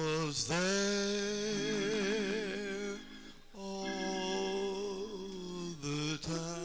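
A man's voice holding long, slow, melodic notes with vibrato into a handheld microphone, over sustained backing music, in two drawn-out phrases with a breath between them about three seconds in.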